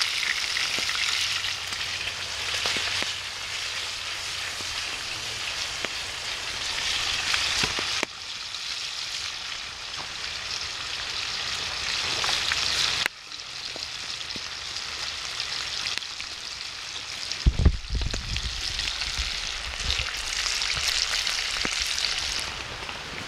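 Food sizzling and frying in a pan over a campfire, a steady crackling hiss, with a few low bumps a little past the middle.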